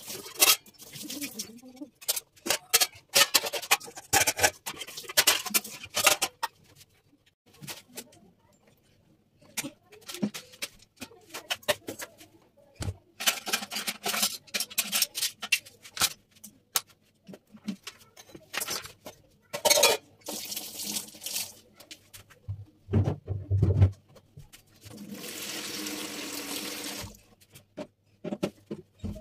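Washing up: steel bowls and pots clanking and knocking against one another, with water from a tap running in several short spells and a steadier stream near the end.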